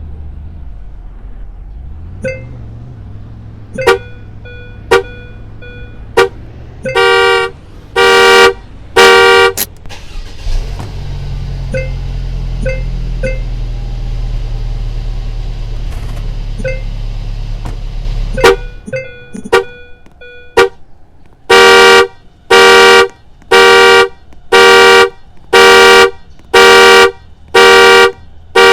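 Car panic alarm: a few short chirps, then loud horn blasts, with a low steady hum through the middle. Near the end the horn pulses evenly at about one blast a second.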